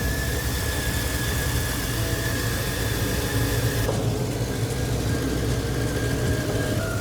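The V8 engine of a 2000 Chevy Silverado running steadily, with a constant hiss over it, after its stuck-open cylinder 8 fuel injector was dealt with.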